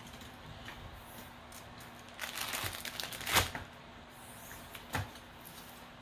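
Plastic bag of diamond-drill packets crinkling as it is picked up and laid on the plastic-covered canvas. A sharp tap a little over three seconds in, when it is set down, is the loudest sound, and a lighter click follows near five seconds.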